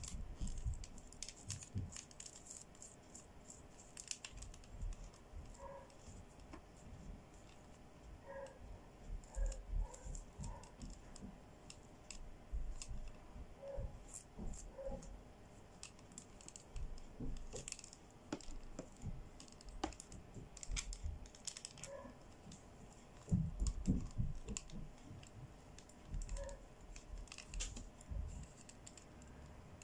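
Fingers rubbing and flipping the plastic sequins on a doll's dress, making scattered small clicks and scratchy rustles, with soft knocks as the plastic doll is handled, a cluster of these about two-thirds of the way in.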